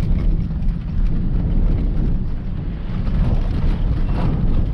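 Pickup truck driving on a bumpy dirt road, heard from inside the cab: a steady low rumble of engine and tyres with faint knocks and rattles.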